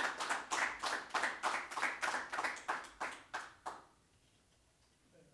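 Audience applauding at the end of a talk, the clapping thinning out and stopping about four seconds in.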